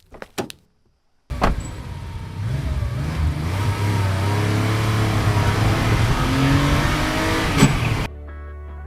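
Car engine starting up abruptly about a second in and running with several revs that rise and fall in pitch, ending suddenly near the end. A few sharp knocks come just before it.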